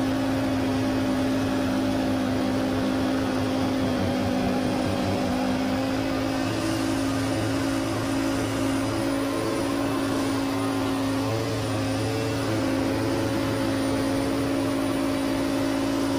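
John Deere X570 lawn tractor's V-twin engine running steadily at working speed, driving a front-mounted snowblower through wet snow.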